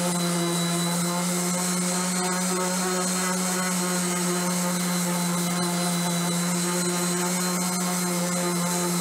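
Corded DeWalt random orbital sander running at full speed against a rough wooden board: a steady motor hum under the hiss of the sanding disc on the wood.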